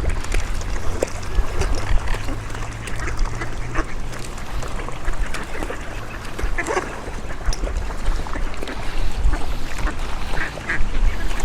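Ducks quacking now and then, with one clearer call about two-thirds of the way through, over a constant low rumble of wind buffeting the microphone.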